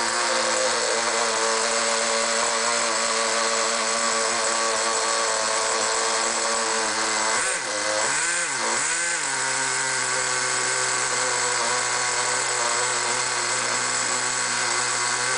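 Small nitro glow engine of a 1/10-scale Megatech Gladiator Tempest RC truck idling steadily. About halfway through, its pitch dips and recovers twice.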